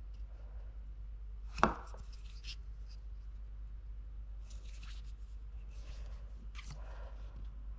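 Fingers handling and turning over a small plastic GoPro HERO 8 camera battery: faint rubbing and light clicks, with one sharper click about one and a half seconds in. A low steady hum lies underneath.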